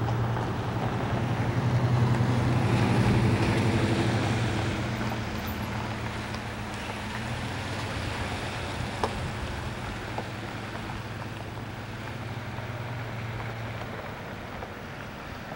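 Low, steady engine hum, louder over the first few seconds and fading out near the end, with wind noise on the microphone.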